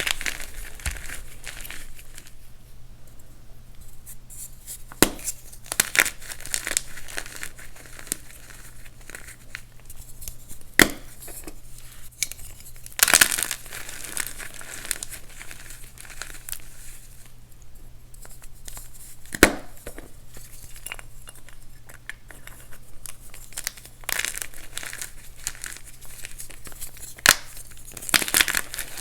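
Reformed blocks of dyed gym chalk being crushed, crunching and crumbling with a steady gritty crackle and irregular sharp snaps as pieces break, the loudest about 13 and 19 seconds in.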